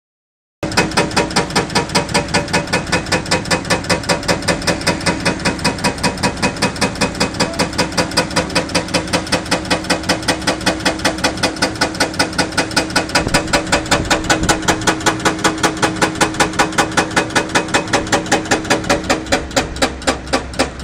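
Hydraulic breaker on a Hyundai 305LC-7 excavator hammering rock, a steady rapid run of about five blows a second that starts about half a second in, over the excavator's steady engine hum.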